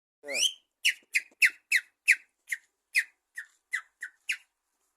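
A rising whistle-like call, then a run of about eleven short, high chirps, each falling in pitch, about three a second.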